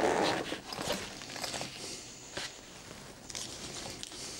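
Fabric carrying case being handled and its zipped lid folded open: rustling with scattered light clicks and knocks, loudest right at the start.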